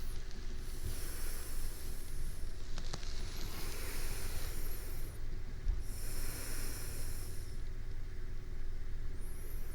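Slow breathing of a sleeping person, close to a binaural microphone: four soft, airy breaths a couple of seconds apart, over a steady low background hum.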